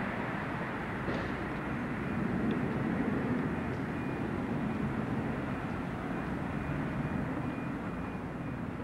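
Electric multiple-unit train running out of the station along the line, a steady running noise that slowly fades as it moves away.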